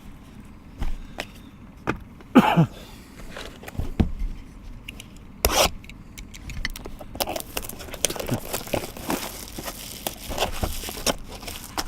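Trading-card packs and cards being handled: scattered taps, clicks and scrapes, then a denser crinkling rustle from about seven seconds in.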